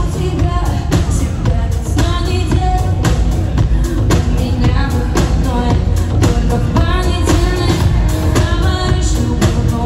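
Live pop song: a woman's lead vocal sung over a band with electric guitar, heavy bass and a steady drum beat.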